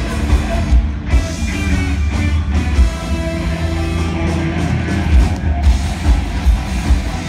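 Live J-rock band playing loud: electric guitar over a steady, driving drum beat.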